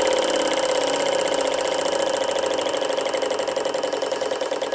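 Brook Gryphon half-horsepower single-phase capacitor-start induction motor running free with nothing on its pulley: a steady hum with a fast, even pulse through it.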